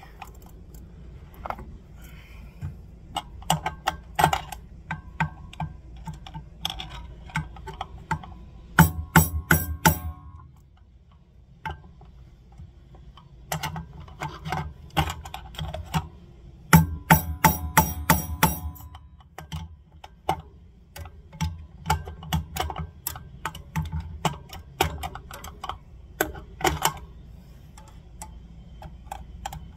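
Hammer tapping a long screwdriver used as a drift, driving a steel bearing race cup out of a motorcycle rear wheel hub: sharp metallic taps in runs, with two quick flurries of hard strikes about nine and seventeen seconds in. The cup is stuck and slow to come out.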